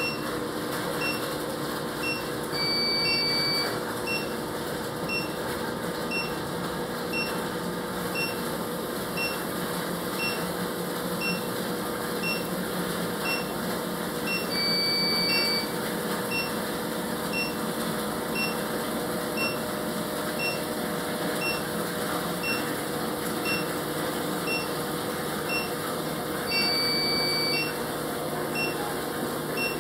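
Battery-backup DC sump pump running steadily under water with a low hum. Over it, electronic beeping: a short beep about twice a second, and a longer beep about a second long three times, roughly every twelve seconds.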